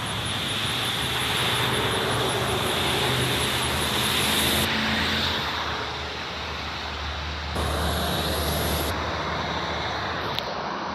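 Road traffic going by: vehicle engines and tyre noise, growing louder about a second and a half in, easing off around six seconds, and rising again near eight seconds.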